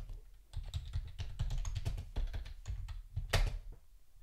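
Typing on a computer keyboard: a quick run of key presses, with one louder key press about three and a half seconds in.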